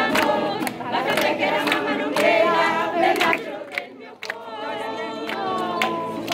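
A group of women singing a traditional washerwomen's folk song together, with hand claps keeping the beat. The singing breaks off briefly about four seconds in, then starts again.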